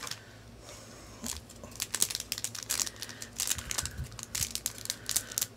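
A small packet of shaping compound (modelling clay) crinkling and rustling in the hands as it is opened, in many short, irregular crackles starting about a second in.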